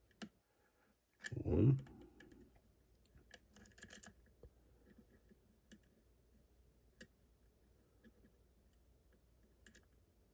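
Faint, scattered clicks of a lock pick working the pins of a six-pin challenge lock under tension, a few light ticks several seconds apart with a short cluster about four seconds in.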